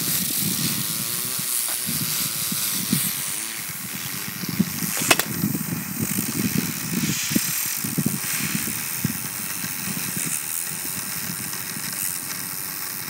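A bicycle rolling past, with one sharp click about five seconds in.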